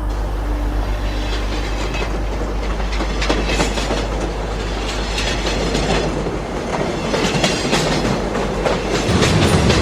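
Train running along the rails, its wheels clacking over the rail joints in an uneven run of clicks over a steady rumble.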